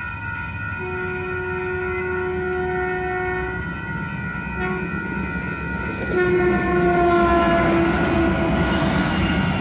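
Electronic railroad crossing bells ringing steadily while an approaching Sprinter diesel railcar sounds its horn: a long blast, a short one, then another long blast that sags in pitch as the train reaches the crossing. Under the last blast comes the louder rushing rumble of the railcar passing.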